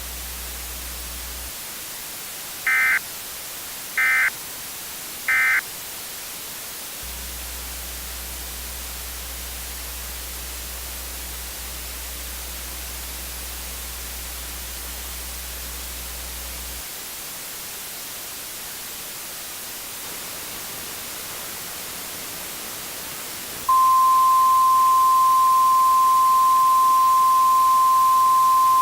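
Weather-radio hiss with three short bursts of digital SAME header data about a second apart. Near the end comes a loud, steady NOAA Weather Radio 1050 Hz warning alarm tone, the signal that an alert message follows.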